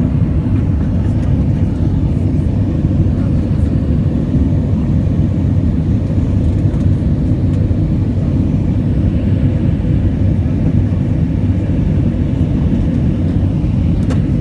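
Airplane taking off: a steady, loud, low rumble of engines and rushing air, with a faint steady hum above it, unchanging throughout.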